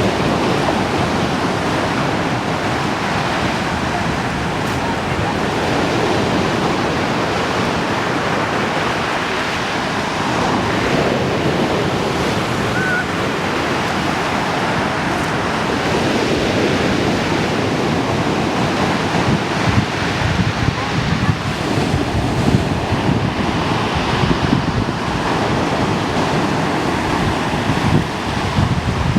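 Rough sea surf breaking and washing on the shore in a storm, a continuous loud rushing, with wind buffeting the microphone in gusts from about two-thirds of the way in.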